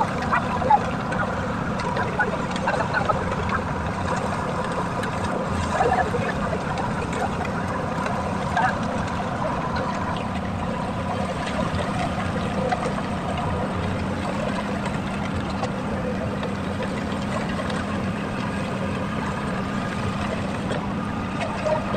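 Engine of heavy concrete-paving machinery running steadily, a constant hum with a few fixed tones in it.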